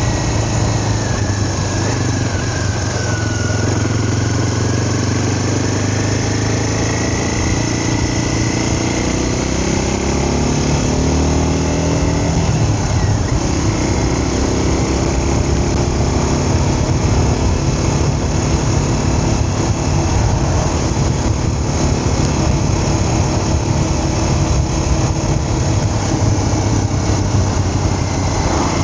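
A vehicle engine running steadily on the move, its revs climbing and dropping around a third of the way in, then holding.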